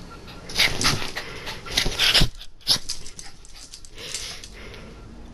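A papillon dog's excited breathy noises during play: several short, sharp puffs of breath in the first three seconds, then one more about four seconds in.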